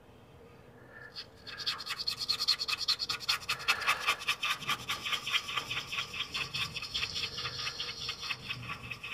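Stiff brush scrubbing a printed circuit board wet with rubbing alcohol, in rapid back-and-forth strokes that start about a second and a half in. The scrubbing is cleaning flux residue off the board after a soldering touch-up.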